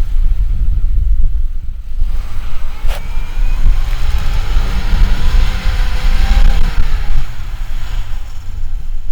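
Off-road vehicle engine running, its revs rising and falling, under heavy low wind buffeting on the microphone. A single sharp click about three seconds in.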